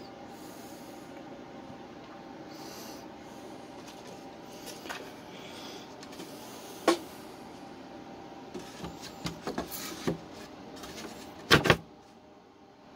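Wooden knocks and clatters as the homemade pull-out scroll saw's wooden frame and plywood table are handled: one sharp knock about halfway, a run of small knocks a little later, and a loud double knock near the end. A steady low hum runs underneath.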